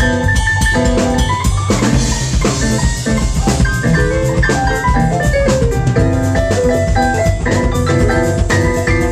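Electric keyboard soloing in a live blues band, with drums and bass underneath.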